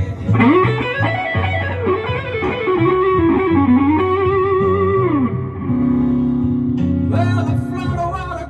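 Electric guitar playing a slow blues lead fill of bent notes, with a long note held with vibrato that ends about five seconds in, over steady bass notes; chords come back in near the end.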